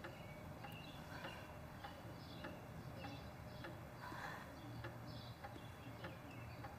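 Faint background ambience: soft high chirps and scattered light ticks over a low hum.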